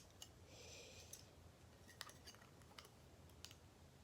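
Faint clicks and light taps of small metal parts being handled: a bolt being tried through stacked butterfly knife handle pieces to check its length. A short soft scrape comes about half a second in.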